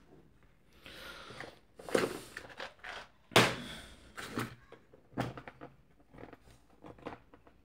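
Irregular knocks and clicks of a circuit board being handled and set down on a workbench. The loudest knock comes about three and a half seconds in.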